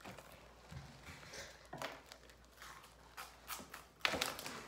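Faint, scattered crunching and small clicks of crunchy corn snack fries being bitten and chewed, louder for a moment about four seconds in.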